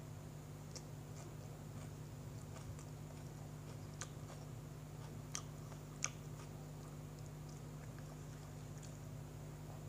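A person chewing a mouthful of sandwich, with a few soft mouth clicks and smacks, the sharpest about six seconds in, over a steady low hum.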